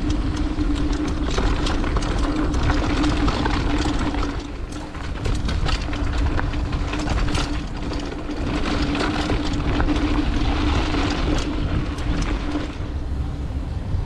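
Mountain bike rattling down a rough, bumpy bike-park trail: a dense clatter of chain, frame and tyres hitting braking bumps over a low rumble, with a steady hum underneath.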